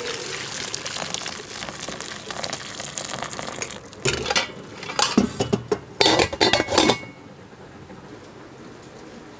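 Kitchen cooking sounds: a utensil clinking and scraping against a pan or dish, with a stretch of louder clattering starting about four seconds in and stopping about three seconds later.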